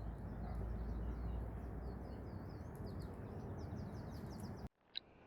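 Small birds chirping and twittering in quick repeated notes over a steady low rumble of outdoor noise, both cutting off abruptly near the end.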